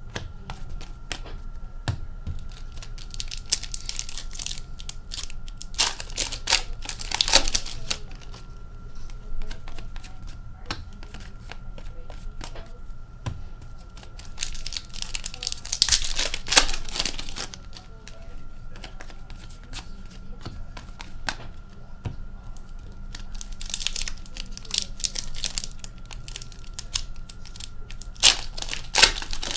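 Foil hockey card packs being torn open and their wrappers crinkled, in several separate bursts of tearing and rustling with quieter card handling in between.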